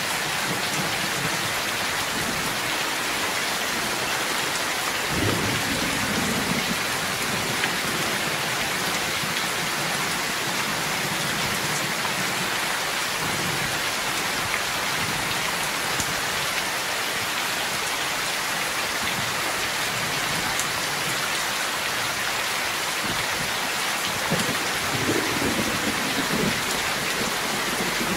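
Heavy rain pouring steadily, with two low rolls of thunder: one about five seconds in and another near the end.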